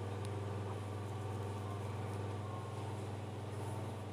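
Steady low electrical hum with evenly spaced overtones, with a faint click about a quarter second in.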